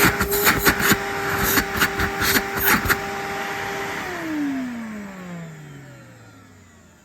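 Numatic vacuum cleaner fitted with a non-genuine 1000-watt replacement motor, running with a steady whine and several sharp clicks. About four seconds in it is switched off and winds down, its whine falling in pitch as it fades.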